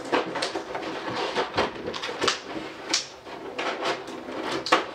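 Black plastic miniature insert trays and a clear plastic lid being handled and lifted out of a board game box: a string of irregular plastic clicks, knocks and scrapes.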